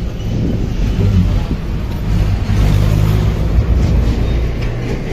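Bus on the move heard from inside the passenger cabin: a steady low engine hum under road noise.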